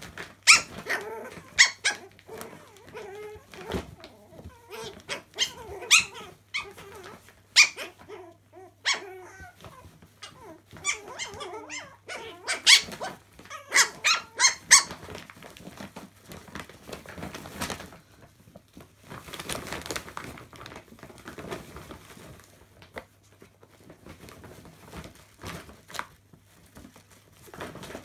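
Chihuahua puppies play-fighting: many short, high, squeaky yips and small barks, thickest in the first half, then softer rustling of laundry as they tumble about.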